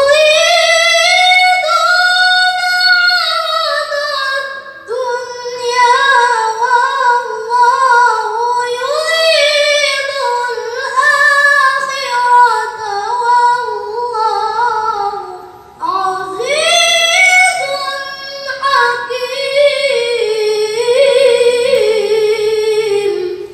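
A boy's high voice reciting the Quran in the melodic qori style, unaccompanied, in long wavering, ornamented phrases. He breaks off briefly twice for breath.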